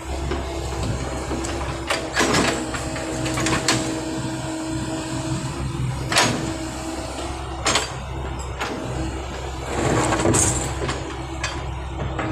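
Backhoe diesel engine running steadily, with sharp metallic knocks and clanks several times over it.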